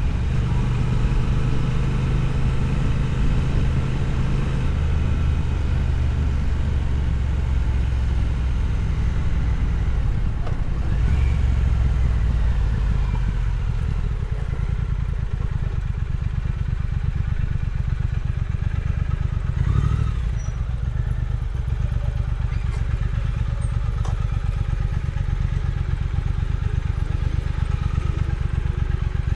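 Triumph Thruxton FE's 1200 cc parallel-twin running on its stock exhaust, catalytic converter still in place, as the bike is ridden at low speed. From about halfway it settles into a steady, evenly pulsing idle.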